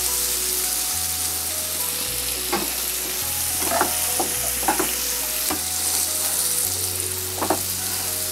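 Sliced onions frying in hot mustard oil in a non-stick pan: a steady sizzle. A wooden spatula stirs them, with several short scrapes and knocks against the pan.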